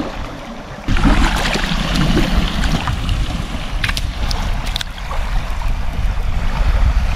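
Wind buffeting the microphone over the wash of shallow seawater and small waves on the shore. The noise jumps louder about a second in, and there are a few light clicks around four seconds in.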